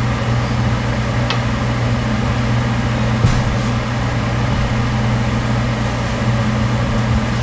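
Microwave oven running with a steady hum and fan noise, heating the chunky lure plastic. A faint click comes about a second in.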